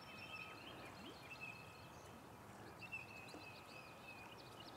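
Faint birdsong: several birds whistling and chirping over a quiet background hiss.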